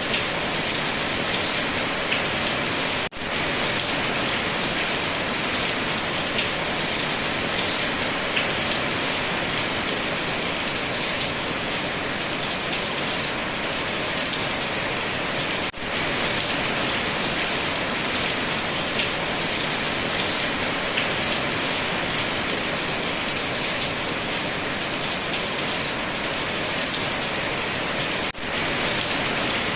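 Steady heavy rain falling on a surface, an even hiss of drops. It dips out briefly three times, about every twelve and a half seconds.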